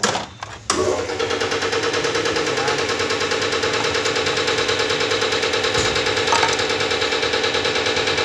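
A brief clatter, then a machine starts abruptly and runs steadily with a rapid, even pulse.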